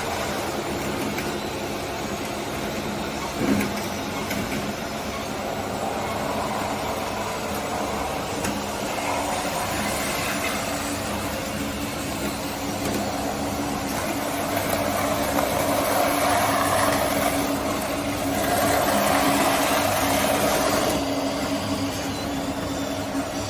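Scale RC construction machines running: a steady mechanical hum with a couple of held low tones. There is a brief thump about three and a half seconds in, and a louder, higher whine for several seconds in the second half.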